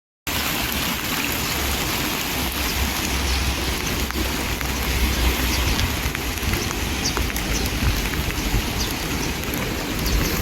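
Steady rain with scattered drops ticking, over a low rumble; it starts abruptly just after the beginning.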